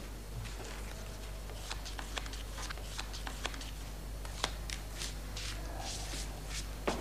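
Playing cards being handled and laid down on a table: a string of short, sharp, irregular clicks and slaps over a steady low hum.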